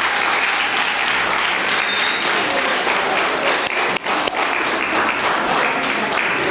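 Audience of children and adults applauding in a hall: dense, steady clapping that thins out near the end.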